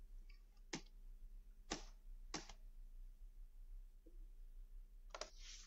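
Near silence: room tone with a steady low hum and a few faint short clicks.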